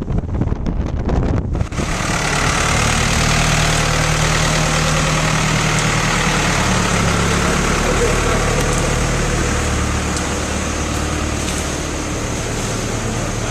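Wind buffeting the microphone for the first second or two. It gives way to a motor vehicle's engine running steadily, with a low, even hum and road noise.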